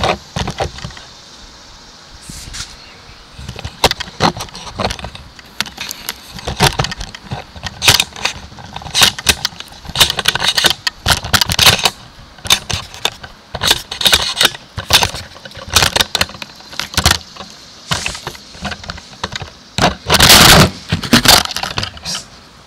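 Handling noise from a camera being moved about and set down at floor level: irregular knocks, clatters and scrapes, with a longer, louder scraping rush near the end.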